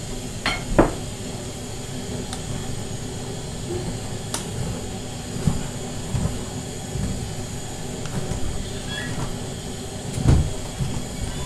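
Wooden spatula stirring diced meat in an aluminium pot: repeated scraping and knocks against the pot over a steady hiss, with the loudest knock about ten seconds in.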